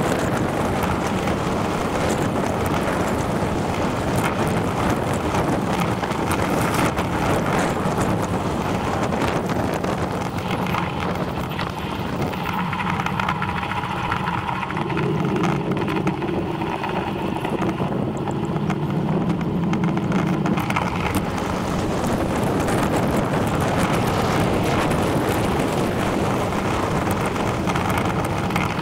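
Wind rushing over the microphone and tyre noise on tarmac from a bicycle riding along a lane. A steadier hum joins in from about twelve seconds in and fades again about nine seconds later.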